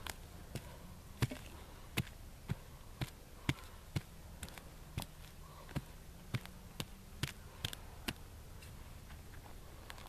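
A hand tool striking into the dirt of a trap bed over and over, about two strikes a second, to loosen the soil; the strikes stop about eight seconds in.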